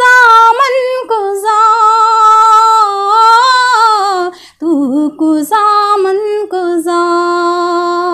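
A woman singing a naat unaccompanied, in long held notes with a gentle waver, with a short breath break about four and a half seconds in.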